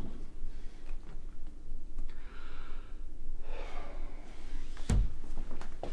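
A teenage girl crying: soft, breathy sobbing and sniffling breaths. One heavy thud about five seconds in.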